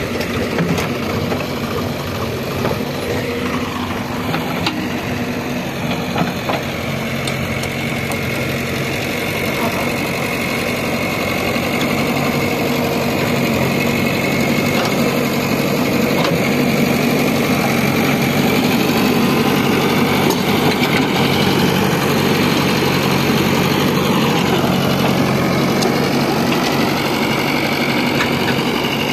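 JCB 3DX backhoe loader's diesel engine running steadily while the backhoe digs soil, with a few sharp knocks around five seconds in. The engine grows louder about halfway through.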